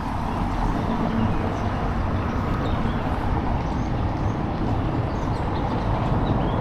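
Steady outdoor ambience: a continuous low rumble and noise of the kind made by distant traffic, wind and water together, with a few faint high chirps near the end.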